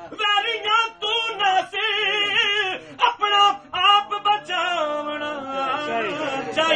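A man's voice singing a devotional Sufi kalaam in Punjabi, a melodic recitation with wavering, ornamented pitch and short breaks between phrases.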